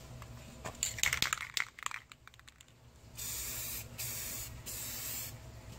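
Aerosol can of Rust-Oleum matte clear enamel spraying a clear coat in three short hissing bursts, starting about three seconds in. A cluster of clicks and rattles comes before it, about a second in.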